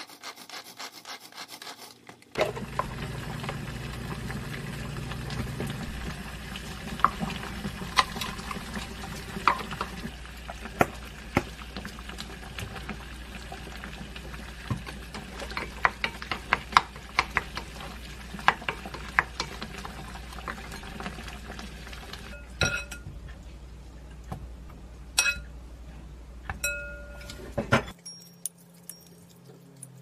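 A wooden spoon stirring and scraping a chopped mixture in a glass bowl, with many quick clicks and knocks against the glass. Several sharp, ringing taps come near the end.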